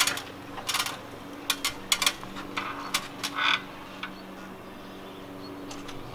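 Irregular clicks and knocks of metal mounting hardware being handled while an awning is fixed to a van, about ten in the first three and a half seconds, then a steady low hum.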